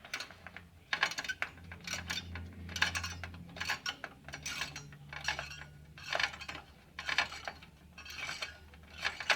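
Screwdriver backing out the spring-loaded heat sink screws in a Dell OptiPlex 745C: irregular light metallic clicks about once a second from the springs on the screws.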